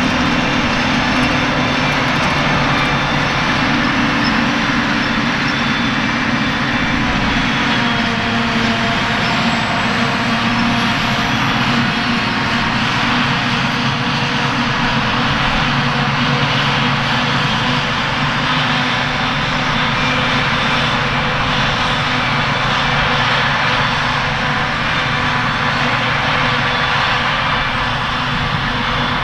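Claas Jaguar 940 self-propelled forage harvester running under load while chopping grass: a steady, unbroken machine drone with a whine over it.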